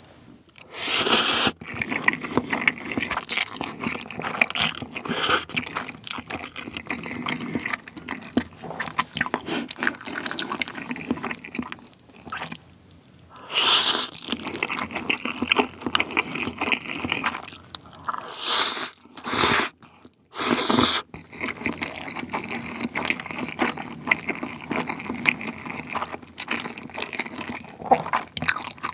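Close-miked eating of jjapaghetti noodles: wet chewing and mouth sounds throughout, broken by loud slurps of noodles drawn in with chopsticks about a second in, about halfway, and three in quick succession about two-thirds through.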